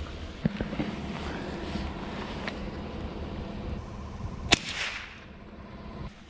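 A single rifle shot about four and a half seconds in, with a short echo after it, the shot that downs a grouse. A truck engine idles underneath, and a small knock comes about half a second in.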